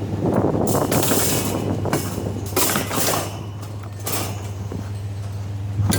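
Folding wire pet cage rattling and scraping in several bursts as it is handled and loaded, over a steady low engine hum.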